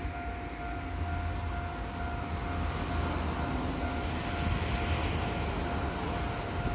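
Railway level-crossing warning bell ringing steadily in the distance, a continuous pitched ring repeating about once a second, over a steady low rumble.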